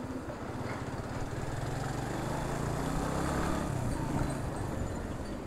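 Motorcycle engine running as the bike pulls away and accelerates, growing louder through the middle and easing off slightly near the end.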